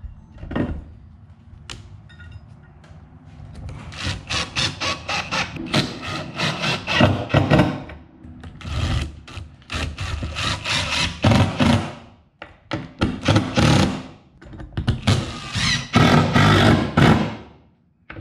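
DeWalt cordless drill/driver driving screws through a metal boat-seat base plate into a carpeted plywood deck. It runs in four long bursts with short pauses between, starting about four seconds in, after a couple of single knocks.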